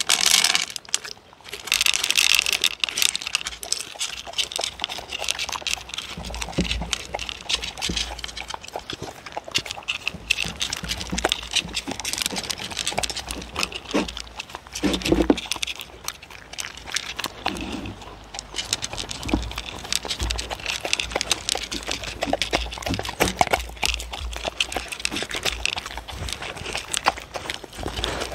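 Two dogs eating wet chicken-liver food from wooden bowls right at the microphone: a steady run of wet licking and chewing clicks with occasional dull knocks. Right at the start, small dry pellets rattle into a bowl from a can.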